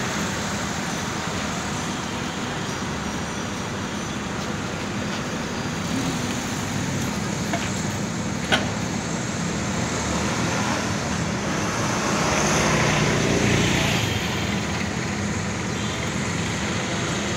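Steady road traffic noise with a car moving past at low speed, growing louder around twelve to fourteen seconds in. A single sharp click about eight and a half seconds in.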